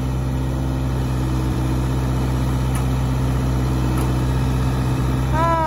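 Ford 555-series backhoe loader's diesel engine running steadily while the backhoe boom holds a suspended steel grain bin.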